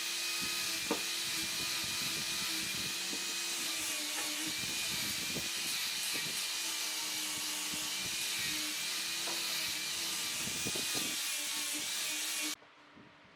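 Handheld electric power tool running steadily with a wavering motor whine, with a few light knocks from the work, stopping abruptly near the end.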